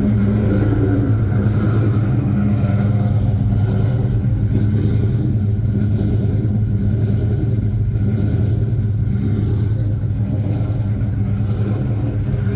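Ford Coyote 5.0 V8 in a Fox-body Mustang idling steadily after being started.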